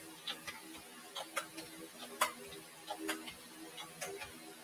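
Tarot cards being dealt and laid down on a table by hand: irregular light clicks and taps as cards are set down and slid into place.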